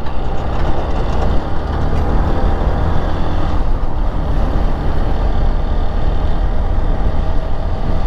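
Motorcycle riding steadily along a road: the engine's steady running under heavy wind rush on the microphone.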